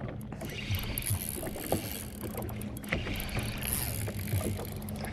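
Water lapping and splashing against a fishing boat's hull in a light wind, with a low steady hum and a few small clicks of rod-and-reel handling.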